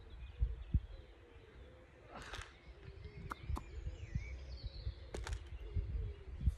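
Outdoor ambience of wind buffeting the microphone in low uneven gusts, with faint bird chirps and a few light sharp clicks, two in the middle and two more about five seconds in.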